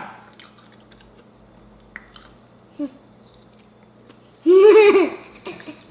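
Faint eating sounds with a couple of small clicks. About four and a half seconds in comes a short wordless voiced sound, lasting under a second, which is the loudest thing here.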